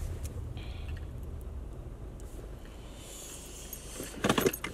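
Steady low rumble of a car heard from inside the cabin, fading a little about three seconds in, with a brief metallic jangle near the end.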